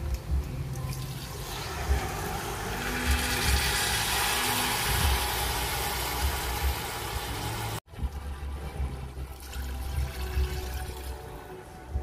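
Water poured from a mug into a stainless steel pot of spiced chicken pieces: a steady splashing pour that builds over the first couple of seconds and cuts off suddenly about eight seconds in.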